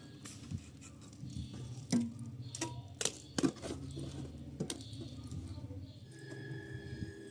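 A few sharp knocks and clicks, about half a dozen spread through the middle of the stretch, over a low steady hum.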